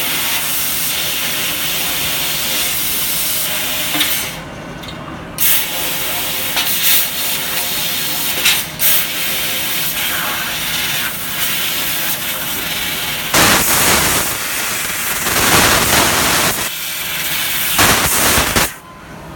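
Fiber laser cutting head blowing its assist gas in a steady hiss while cutting square steel tube, pausing briefly about four seconds in. It grows louder in two rushing stretches near the end, then cuts off suddenly.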